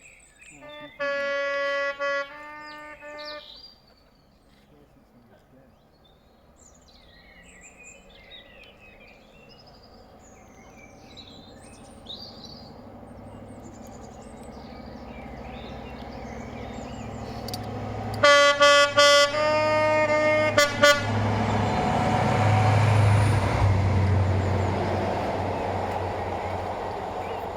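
A train's two-tone horn sounds a high note then a lower one, about a second in. The train then approaches with a rumble that builds, gives a rapid string of loud short horn toots, and passes with a heavy rumble that slowly falls away. Birds chirp faintly between the horns.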